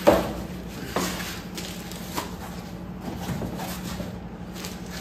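Handling of a cardboard box and a plastic-wrapped multi-effects pedal: rustling and rubbing, with a sharp knock at the very start, another about a second in and a few lighter clicks later, over a steady low hum.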